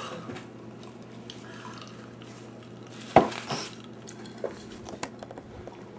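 A few light clinks and knocks of tableware. The loudest comes a little past halfway, followed closely by a smaller one and a few faint ticks.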